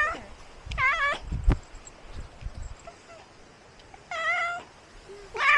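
Domestic cat meowing: a run of short, wavering meows, one about a second in, another a little after four seconds, and a last one starting near the end.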